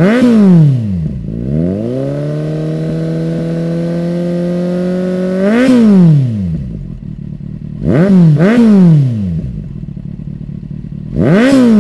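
Kawasaki Z800's inline-four engine revved while stationary, heard through a Lextek VP6 aftermarket silencer: a quick blip, then revs rising and held steady for about three and a half seconds, another blip, a quick double blip, and one more blip near the end.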